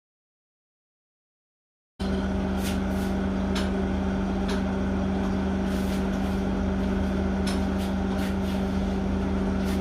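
A steady mechanical hum with one constant low tone and a few faint clicks, cutting in suddenly after about two seconds of silence.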